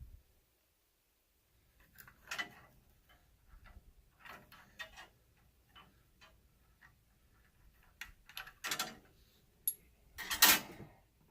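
Scattered clicks and short rattles of a cheap angle grinder being handled and taken apart by hand, with a longer, louder rattle about ten seconds in.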